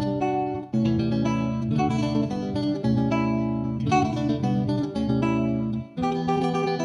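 Background music led by a plucked guitar, with the chords changing every second or so.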